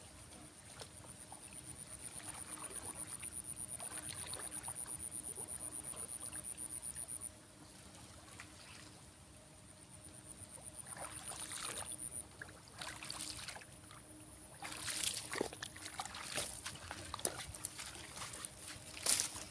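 A high, fast-pulsing trill that stops about seven seconds in and comes back briefly around ten seconds. Irregular splashing and rustling follow through the second half.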